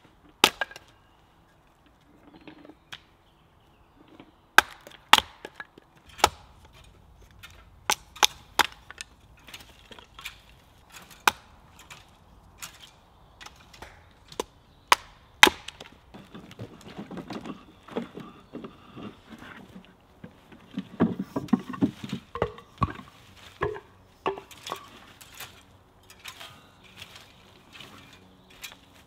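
Hatchet splitting kindling on a wooden chopping block: a series of sharp, separate wood chops and splits through the first half, then a busier stretch of softer scraping and knocking with fewer strikes.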